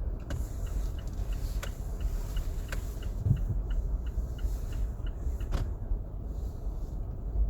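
Car driving with a window open: a steady low rumble of road and wind noise. A regular light ticking, about three a second, runs through it, along with a few sharper clicks.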